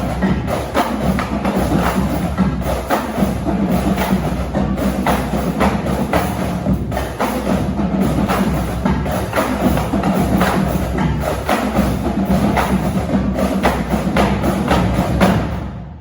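Marching drumlines playing a fast, dense cadence of snare, tenor and bass drum strokes, stopping abruptly at the very end.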